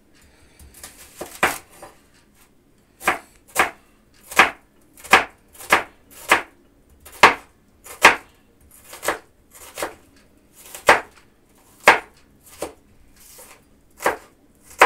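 Kitchen knife slicing an onion into rings on a wooden cutting board: a string of sharp, separate knocks of the blade meeting the board, about one or two a second, starting about a second and a half in.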